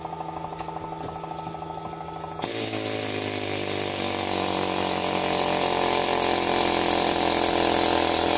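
Pneumatic air chisel hammering steadily on the steel stator of a small electric motor, shearing off the copper windings. It starts loud about two and a half seconds in; before that there is only a quieter, steady machine hum.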